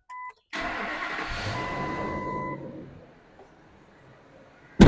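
Ford 6.8L Triton V10 cranking and starting on its first start after new spark plugs, a short beep just before it turns over. It runs loud for about two seconds, then settles to a quiet, smooth idle with no misfire heard. A single sharp knock comes near the end.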